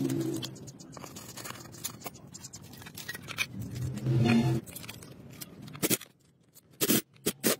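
Clicks and scrapes of metal engine parts being handled and fitted into the bare aluminium crankcase of a four-cylinder motorcycle engine during reassembly. A low pitched sound comes twice, at the start and about four seconds in, and a few sharp separate clicks come near the end.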